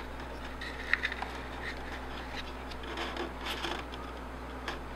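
Faint scattered clicks and rubbing from hands handling a tube of gel super glue and a strip of wooden moulding, over a steady low hum.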